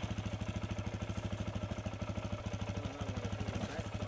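Dirt bike's engine idling steadily with a fast, even beat, a short while after being started.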